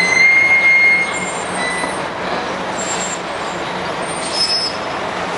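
A New York City transit bus driving past at close range in street traffic, its engine and tyres making a steady mixed noise. A high, steady squeal sounds during the first second or so.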